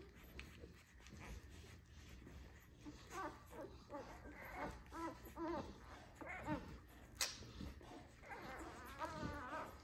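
One-week-old puppies making faint squeaks and whimpers while they nurse. The calls are short and bend up and down, and a longer wavering whine comes near the end. A single sharp click sounds about seven seconds in.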